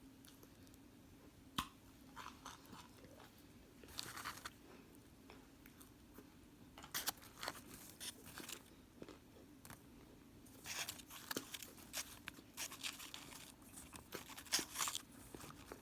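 Person biting into and chewing hard, crunchy microwaved cornstarch chunks, in irregular bursts of crunches with short pauses between them.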